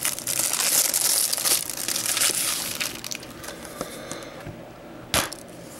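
Plastic shrink wrap being torn and crumpled off a Blu-ray case, loud crinkling for the first couple of seconds, then quieter handling of the case with small ticks and one sharp click about five seconds in.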